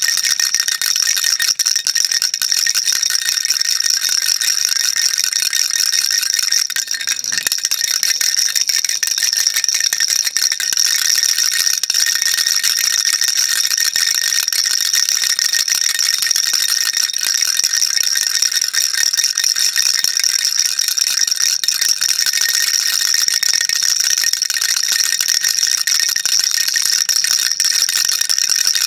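Baby rattle shaken without a break, a dense, steady, high rattling with a ringing edge, easing briefly about seven seconds in.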